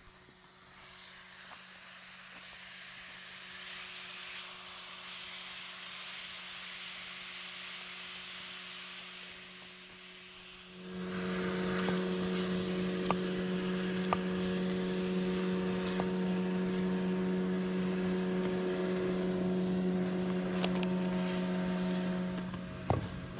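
A steady hiss for about eleven seconds, then a louder steady engine hum that starts abruptly, holds one unchanging pitch, and stops just before the end.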